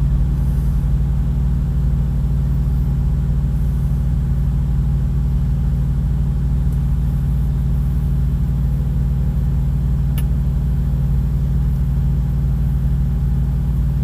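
Diesel truck engine idling, a steady low rumble that holds even throughout.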